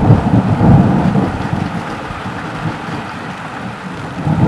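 Thunder rolling over steady rain: a loud low rumble in the first second or so that dies away, then the rain's hiss, with a brief swell of rumble near the end.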